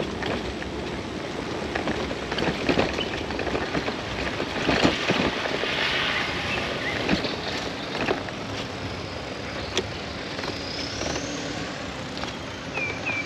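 Wind rushing over the microphone of a touring bicycle on the move, with scattered clicks and knocks from the bike on a rough road. Two short chirps near the end.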